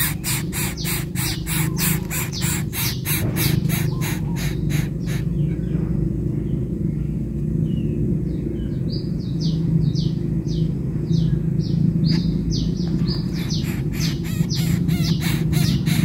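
Bird calls: a rapid run of harsh, scratchy notes about four a second, which stops about five seconds in. Higher, thinner repeated notes start about nine seconds in. A steady low hum runs underneath.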